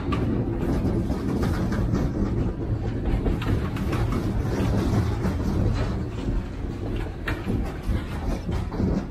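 Freight cars of a coal train rolling past, a steady rumble with repeated wheel clicks and clacks over the rails.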